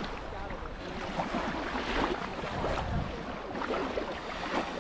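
Small waves washing and lapping on a sandy shoreline, with wind rumbling on the microphone.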